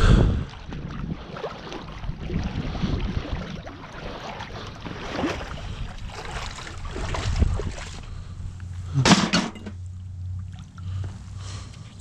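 Movement and handling noise from someone working a magnet-fishing rope on a muddy, grassy bank: rustling, shuffling and rumble. There is a loud knock right at the start and a brief sharp sound about nine seconds in.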